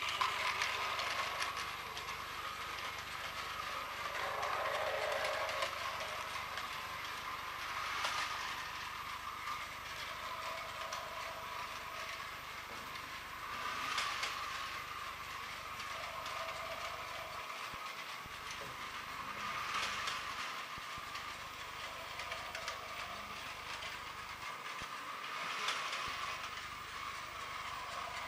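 Battery-powered Plarail toy train running on plastic track: a steady gearbox whine with a light clatter of wheels, growing louder about every six seconds.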